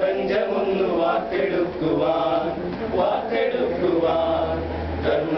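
A group of young men singing together in chorus, their voices holding and bending notes in a group song.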